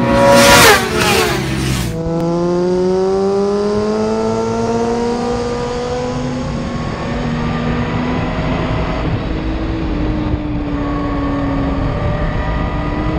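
A group of racing motorcycles passes at speed, loud, their engine pitch falling as they go by. From about two seconds in, onboard sound from a racing electric Yamaha R1: a smooth electric-motor whine that climbs as the bike accelerates, levels off and sags slightly, then climbs again near the end, over steady wind rush.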